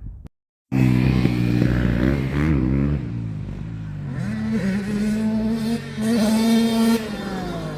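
Farting: a long, loud, pitched fart that wavers in pitch, starting just under a second in after a cut to silence, then settles to a steadier held pitch and breaks off about seven seconds in.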